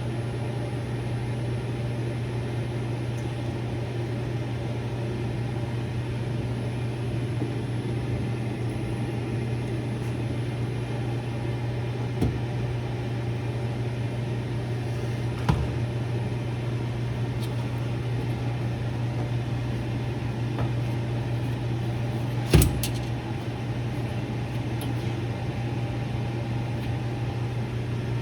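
A steady low mechanical hum, with a few short knocks; the loudest knock comes about three-quarters of the way in.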